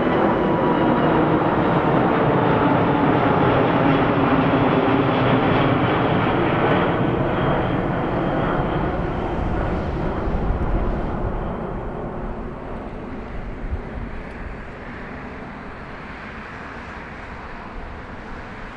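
Airbus A380 airliner with its four Rolls-Royce Trent 900 turbofans at climb power, passing close overhead after takeoff: a loud jet roar with a whine that drops slightly in pitch. The roar fades over the second half as the airliner climbs away.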